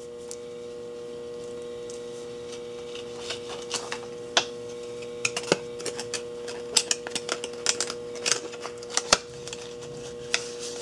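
Irregular small clicks and crinkles of plastic heat-shrink tubing being handled, starting about three seconds in, over a steady electrical hum.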